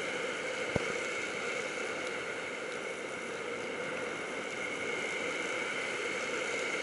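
Steady rush of breaking surf and churning whitewater, with one sharp click about a second in.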